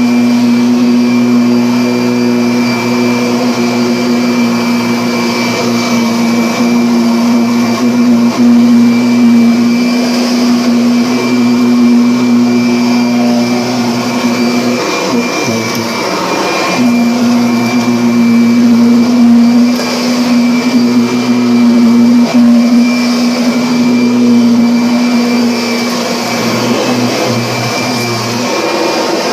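Vacuum cleaner motor running steadily with a pitched hum over a rush of airflow. About halfway through, the hum wavers and drops out for a couple of seconds, then steadies again.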